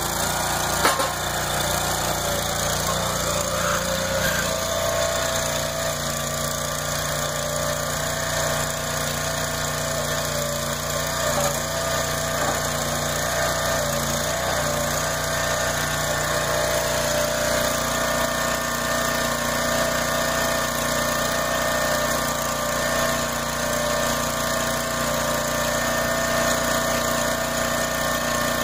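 Small gasoline engine on a hydraulic log splitter running steadily, driving its hydraulic pump, with a short sharp click about a second in.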